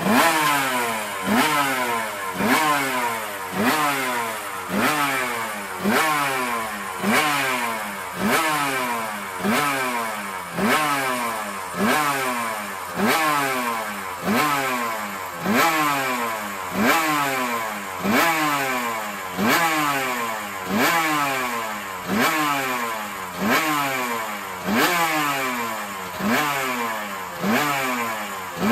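Suzuki RGV Gamma 500's V4 two-stroke engine, revved on the stand: the throttle is blipped about once a second, and each time the revs jump up sharply and then fall away before the next blip.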